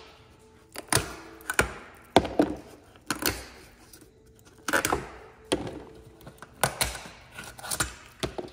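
Old riveted seal-edge trim being snapped off a truck cab's cowl by hand, with the broken pieces dropped onto the sheet-metal cowl: a string of irregular sharp clacks and clinks.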